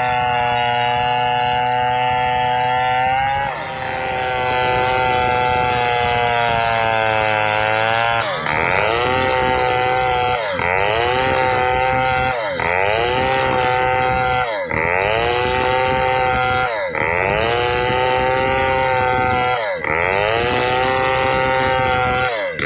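Chainsaw at high revs ripping along the grain of hard damar laut timber. About a third of the way in its pitch dips, and from then on it sags and recovers roughly every two seconds as the chain bogs in the hardwood and picks up speed again.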